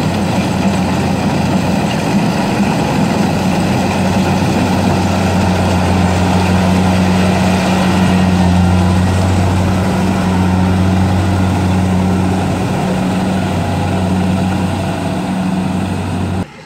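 A combine harvester's diesel engine running steadily at working speed, a strong low hum over a broad mechanical noise, cutting off abruptly just before the end.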